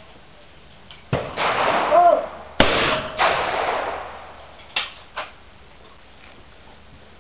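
A shooter's shouted call, then a shotgun firing with a sharp crack and a second loud report just after it. A little later come two sharp clicks.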